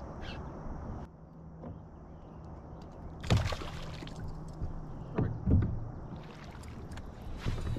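A hooked smallmouth bass splashing at the surface right beside a kayak as it is landed, with a sharp splash about three seconds in and more splashing around five and a half seconds and near the end.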